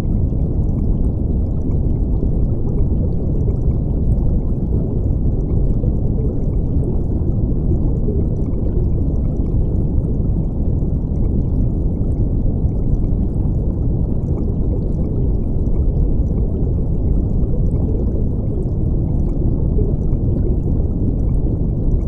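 Water bubbling and rushing in a steady, unbroken stream, heard dull and muffled with almost nothing in the highs, like water noise heard from under the surface.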